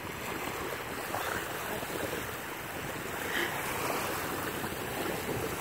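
Small waves lapping and washing up onto a sandy shore, with some wind on the microphone.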